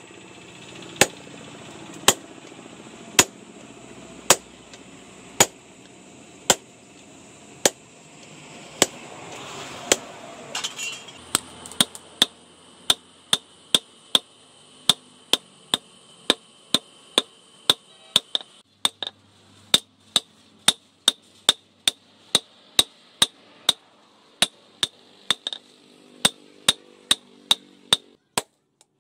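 Hand hammer striking red-hot spring steel on a steel post anvil. Sharp blows land about a second apart at first, then from about eleven seconds in they come quicker, about two a second, until they stop near the end.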